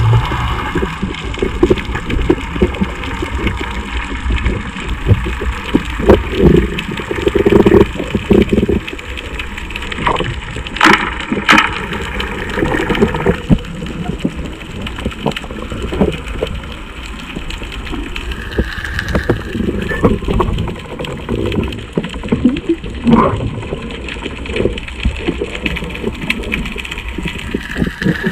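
Underwater noise picked up through an action camera's housing: a steady low rumble of moving water with scattered clicks and crackles, and a few sharper knocks about eleven seconds in.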